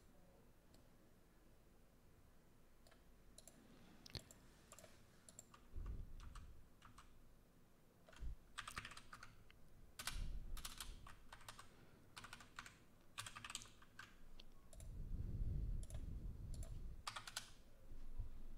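Typing on a computer keyboard: faint keystrokes in irregular bursts, busiest in the second half, with a few dull low bumps, the longest about fifteen seconds in.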